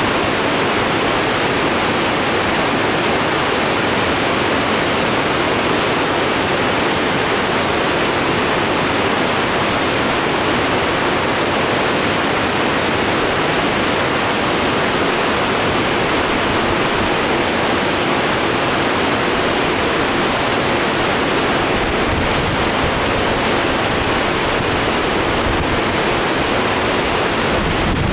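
Fast, turbulent creek water, swollen by recent rain, rushing through whitewater rapids: a loud, steady rush of water with no let-up.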